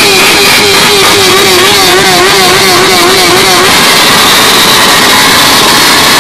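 Motorcycle engine revved hard and held at high revs, so loud that it overloads the recording. Its pitch wavers up and down about three times a second, and about two-thirds of the way through the held note breaks up into loud, ragged exhaust noise.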